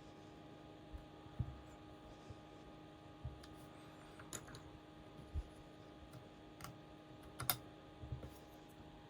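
Scattered light clicks and taps from handling small parts inside an opened laptop as the old RAM modules are removed, the sharpest click about seven and a half seconds in, over a faint steady hum.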